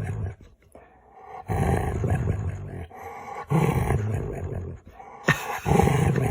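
A dog making playful growling, grumbling vocal noises in three long, rough bursts, each about a second and a half.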